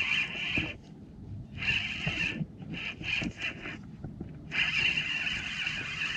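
Spinning reel whirring in spurts as the handle is cranked to reel in a hooked fish, pausing briefly twice.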